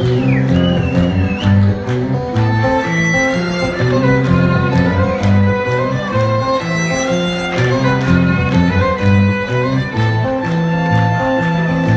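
A rock band plays the instrumental introduction to a song, with a violin carrying the melody over guitar, bass and drums. Near the start a high sliding whistle rises and falls.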